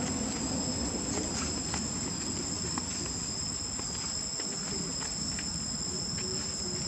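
Insects buzzing steadily in two unbroken high tones, over a low background rumble with a few faint clicks.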